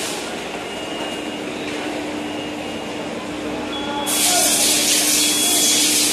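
Machinery on a circuit-board assembly line running with a steady hum. About four seconds in, a loud hiss of compressed air starts and lasts a little over two seconds.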